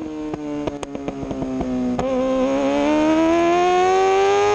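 Onboard sound of a 2003 Yamaha R6's inline-four racing engine with a cut-short Akrapovic exhaust: a string of sharp exhaust pops off the throttle through a leaned corner, then the revs climb steadily as it accelerates out. The popping is one the rider puts down to the shortened exhaust.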